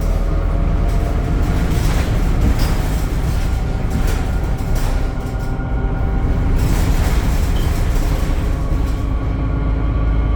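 Interior noise of a Temsa Avenue LF 12 city bus under way: the DAF diesel engine and ZF gearbox run with a strong low rumble and steady whining tones, with occasional knocks and rattles from the body.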